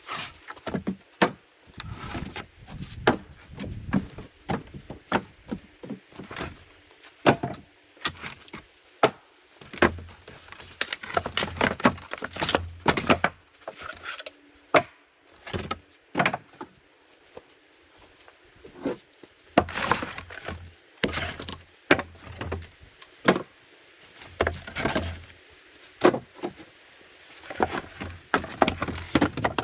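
Sawmill cutoff boards being thrown and dragged onto a wooden sawbuck: many irregular knocks and clatters of wood striking wood, coming in clusters.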